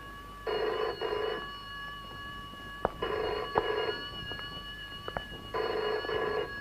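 A rotary desk telephone's bell ringing three times. Each ring lasts about a second, with about two and a half seconds between them.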